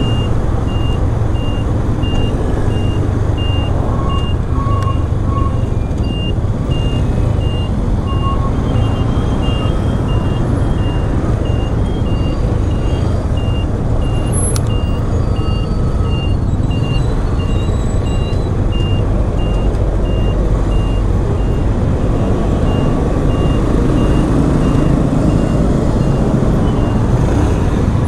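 Motorcycle riding in traffic, a steady engine and road rumble. Over it, a short high-pitched beep repeats about once a second without a break.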